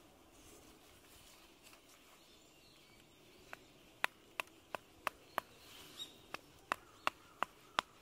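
A metal tent stake being driven into the ground with a rock: about a dozen sharp, ringing metallic clinks, roughly three a second, beginning a few seconds in.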